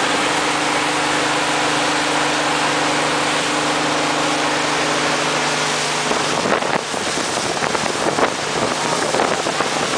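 Speedboat engine running at speed, a steady drone under the rush of the wake spray and wind on the microphone. About six seconds in, the steady engine note gives way to irregular splashing and wind buffeting.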